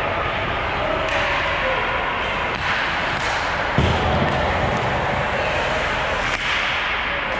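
Ice hockey rink sound during play: a steady noisy wash of skates on the ice and the arena, with one heavy thud about four seconds in and a sharper knock a couple of seconds later.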